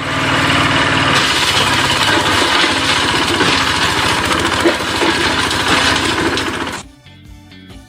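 Loud construction machinery: an engine running under a dense, continuous clatter, which cuts off suddenly about seven seconds in and gives way to quiet background music.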